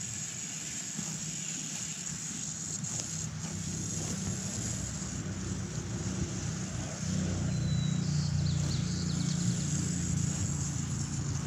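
Garden hose spray nozzle hissing steadily as water is sprayed onto a horse's legs, stopping near the end. Under it a low engine-like hum grows louder about seven seconds in.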